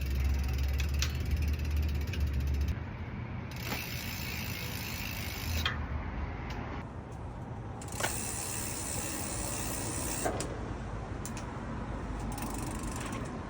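Ratcheting mechanical clicks as the bolts on a bicycle's brake caliper are tightened, with a few sharper ticks scattered through and a low rumble in the first few seconds.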